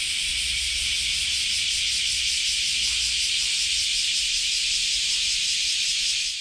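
Cicadas buzzing in a dense summer chorus: a loud, steady, high-pitched drone with a fast pulsing texture. It fades out at the very end.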